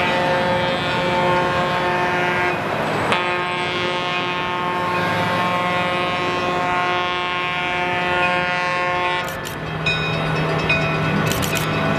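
Trackmobile railcar mover's horn sounding in long, steady blasts, with a short break about three seconds in and a change in the chord near the end, over the low steady running of its engine. A few sharp clicks come near the end.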